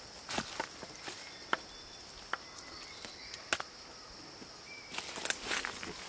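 Insects droning steadily at a high pitch, with scattered sharp clicks and knocks and a burst of rustling about five seconds in.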